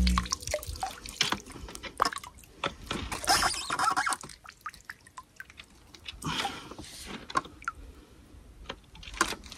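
Water splashing and dripping in small, irregular splashes, with scattered sharp clicks and taps. The biggest splashes come about three to four seconds in and again past the six-second mark.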